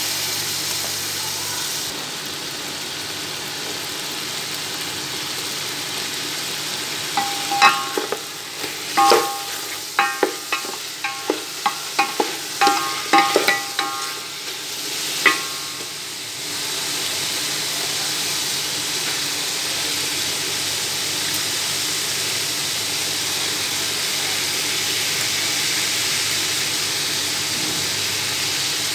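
Chicken pieces frying in hot oil in a steel pot, with a steady sizzling hiss. From about seven to sixteen seconds in, a run of sharp, ringing clinks sounds as the stirring utensil knocks against the side of the pot.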